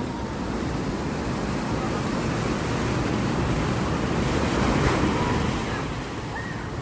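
Sea waves washing onto a black sand beach, with wind rumbling on the microphone; one wave swells loudest about four to five seconds in, then eases.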